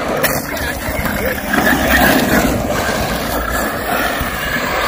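Arrma Mojave 6S RC trucks running on a dirt track: brushless electric motors whining and tyres working the loose dirt.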